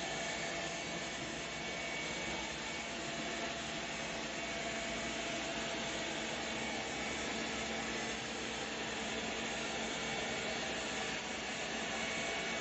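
ILIFE V3x robot vacuum cleaner running: a steady rushing noise from its suction fan, with a faint steady hum under it.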